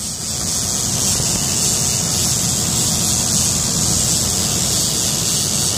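Steady rush of wind and water under the low drone of a sportfishing boat's engines, with the boat moving through the sea.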